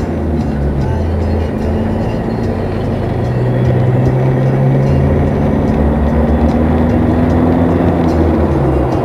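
Car engine and road noise inside the cabin while driving, a steady low hum.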